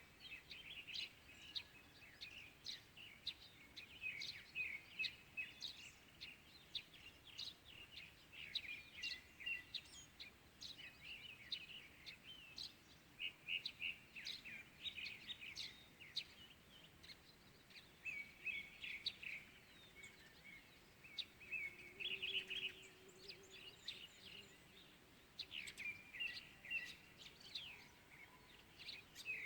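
Several small birds chirping and twittering continuously at dawn, many short calls and trills overlapping, over a faint steady outdoor hiss.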